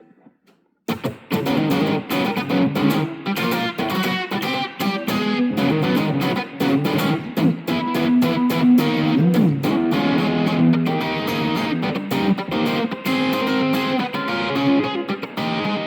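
Electric guitar played through a Yamaha THR10II desktop amp on its lead setting, with a distorted tone. A fast, busy riff of quickly picked notes starts about a second in, with a string bend about halfway through.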